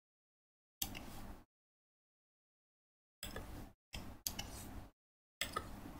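A few faint clicks from a laptop as cells are clicked and a formula is typed, each followed by a short stretch of low background hum and hiss, with dead silence in between.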